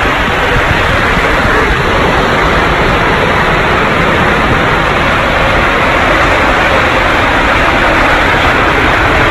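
Water rushing through an enclosed water-slide tube as a rider slides down it: a loud, steady rush without a break.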